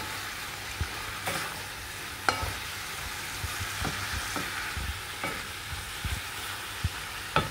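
Wooden spatula stirring taro stolons and shrimp around a frying pan over a steady sizzle of hot oil, with a short knock of the spatula against the pan about once a second.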